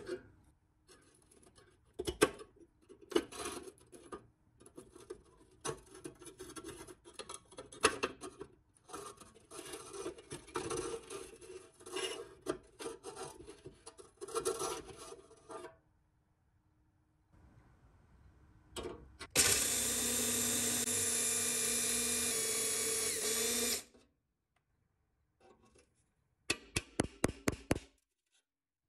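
Rusty pressed-steel toy truck parts being handled: irregular scraping and clicking as a bent wire handle is worked free of the corroded steel. About two-thirds of the way through, a power tool runs steadily for about four seconds, and near the end there is a quick series of about eight short bursts.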